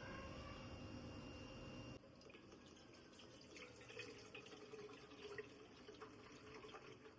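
Faint kitchen sounds at a sink: water and light clinks and taps, scattered through the latter part after an abrupt change about two seconds in. The first two seconds hold only a steady low hum and hiss.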